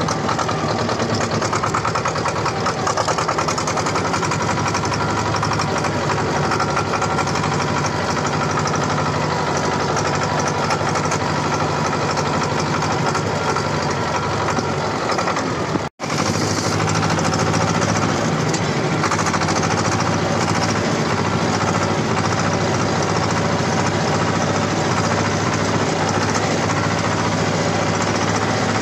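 T-25 tractor's two-cylinder air-cooled diesel engine running steadily while the tractor drives along, heard close from the driver's seat. The sound cuts out for a split second about halfway through.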